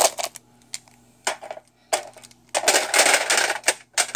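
Plastic Crayola Signature dual-tip markers clicking and clattering against the inside of a metal tin as they are put in by hand. A few single knocks come first, then a longer rattling clatter about two and a half seconds in.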